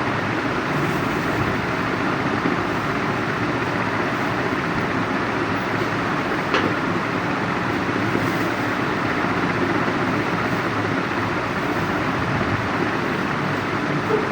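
Steady, even rushing noise, with one sharp click about six and a half seconds in.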